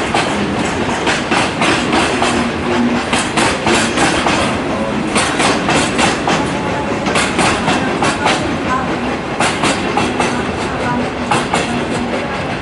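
Coal freight train of Hoki 10000 hopper wagons rolling past, its wheels clacking over rail joints in repeated groups over a steady rumble.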